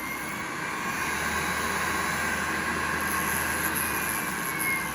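Machine spindle motor running with a steady whine, its speed shifting up and down as the spindle override is changed from the MPG handwheel.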